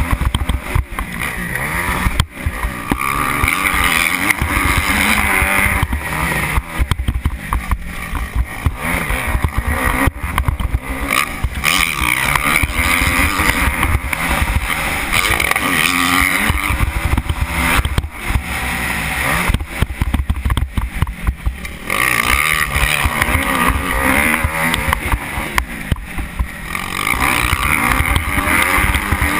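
Kawasaki KX250F four-stroke single-cylinder motocross engine revving hard under throttle, rising and falling as the bike rides the dirt track, heard from a helmet-mounted camera with heavy wind buffeting on the microphone.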